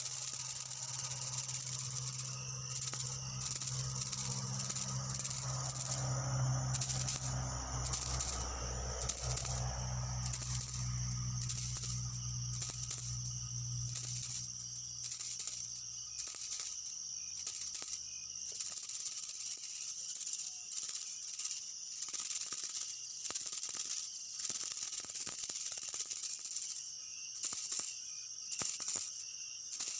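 Steady high-pitched insect chorus with an even, pulsing rhythm. A low hum runs underneath and stops a little over halfway through.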